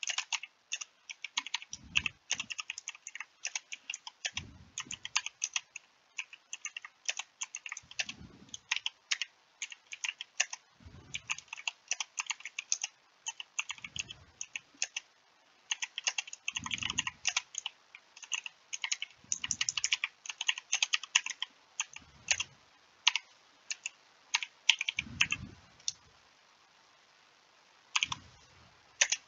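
Typing on a computer keyboard: quick, irregular runs of keystroke clicks, stopping for a moment near the end before starting again. A soft low thud comes every two to three seconds under the clicks.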